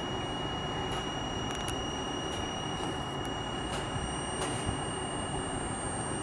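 Electric passenger trainset at the platform, its onboard equipment running with a steady hum and a constant high-pitched whine. A few faint ticks sound over it.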